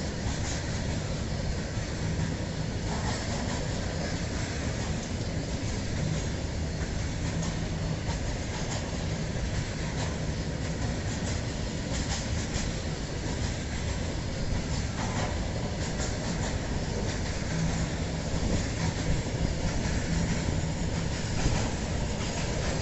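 Train running along the track: a steady rumble of wheels on rails, with scattered clicks as the wheels cross rail joints.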